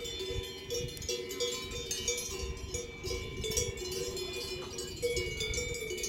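Several cowbells ringing at a few different pitches, clanking irregularly and overlapping as the animals move.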